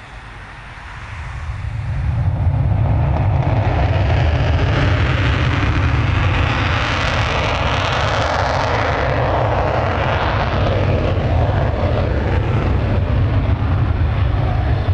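F-16C Fighting Falcon jet engine at takeoff power as the fighter rolls down the runway. It builds quickly over the first two seconds to a loud, steady jet noise with a deep rumble, hissing most brightly about halfway through.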